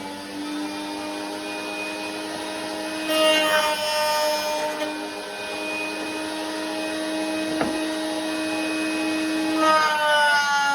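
Router fitted with an R6 roundover bit running with a steady motor whine, growing louder as it cuts a wood edge about three seconds in and again near the end. A single sharp click comes about three quarters of the way through.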